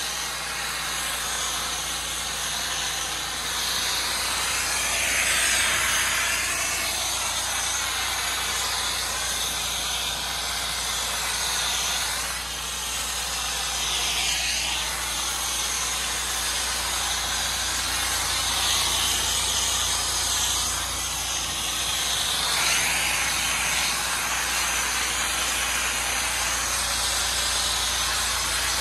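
Pressure washer spraying a high-pressure water jet onto a natural stone patio: a steady hiss that swells and fades every few seconds as the jet sweeps, over the steady hum of the machine's engine.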